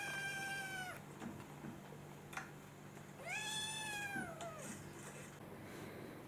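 A domestic cat meowing twice: a high meow about a second long that drops in pitch at the end, then a longer meow a few seconds in that rises and falls. A short click falls between them.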